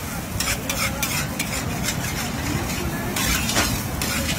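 Metal spatula scraping and turning fried rice in a large metal wok, in irregular strokes a few times a second, with the rice sizzling over a steady low rumble.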